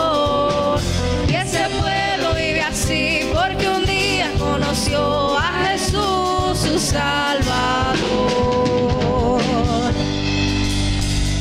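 A group of young singers performing a Christian praise chorus, backed by a drum kit and keyboard. About ten seconds in the voices stop, leaving a held chord.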